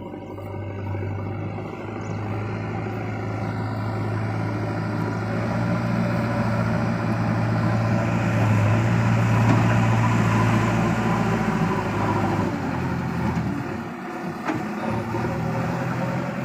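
Diesel engine of a JCB 3DX backhoe loader running under load, growing steadily louder for about ten seconds, then easing back about twelve seconds in.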